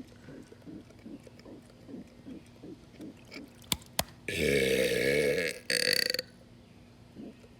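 A man's long, loud burp about four seconds in, wavering in pitch for over a second, then breaking off and coming back in a shorter second burst. Two sharp clicks come just before it.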